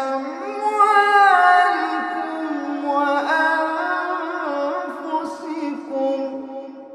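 Male voice chanting Quran recitation unaccompanied, drawing out long melodic notes with turns and glides in pitch, then fading away near the end.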